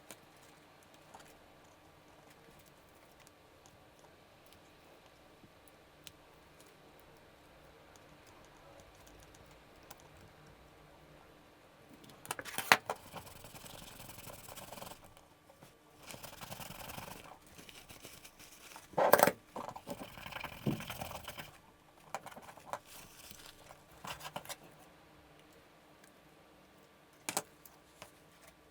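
Small tools and camcorder parts handled on a workbench during a main-board thermal pad replacement. Quiet at first, then from about halfway a run of scraping, rustling and clicks with one sharp knock. A last click comes near the end.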